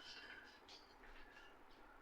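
Near silence, with a few faint, short high-pitched chirps.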